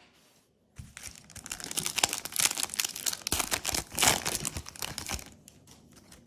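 Foil wrapper of a Yu-Gi-Oh! booster pack being torn open and crinkled by hand, a dense crackling that begins about a second in, peaks twice and dies away about a second before the end.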